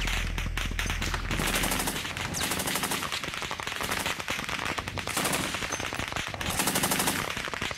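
Tripod-mounted heavy machine gun firing in several bursts of rapid shots, a second or two apart.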